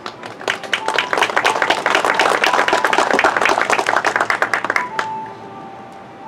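Audience applauding: a dense patter of hand claps that builds about half a second in and dies away around five seconds in.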